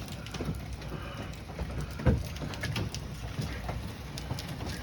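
Hail and rain pelting down, many small sharp hits over a steady wash of falling water, with one louder knock about two seconds in.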